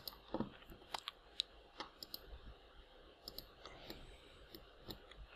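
Faint, irregularly spaced clicks of a computer mouse and keyboard being worked.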